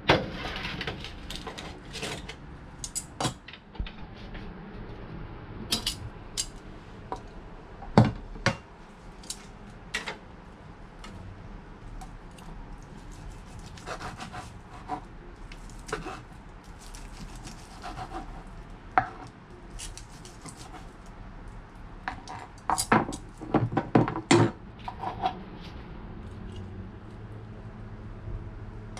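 A kitchen knife cutting air-fried chicken thighs on a cutting board while metal tongs hold the meat. Irregular clicks and knocks come from the blade striking the board and the tongs clacking, with a quick cluster of them a little over two-thirds of the way through.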